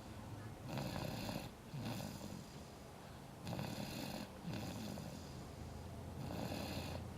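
A sleeping baby snoring, three slow breaths, each a breathy hiss followed by a low rasp.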